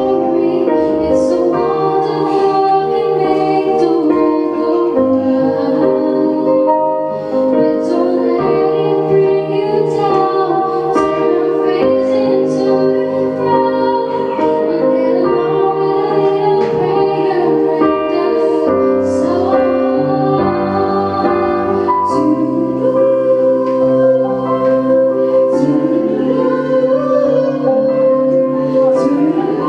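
Music: a woman singing a song over piano or keyboard accompaniment, with long held notes.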